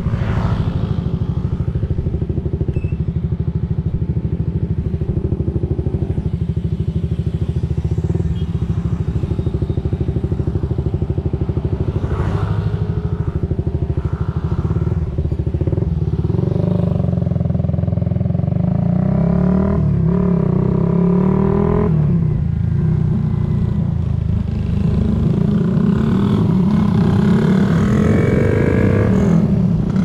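Honda CBR250RR's parallel-twin engine running while riding, its revs rising and falling a few times past the middle and again near the end.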